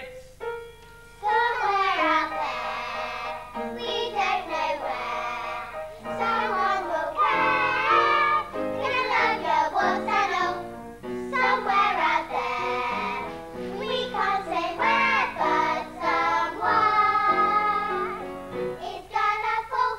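A solo voice singing a musical-theatre song over instrumental accompaniment, the singing starting about a second in.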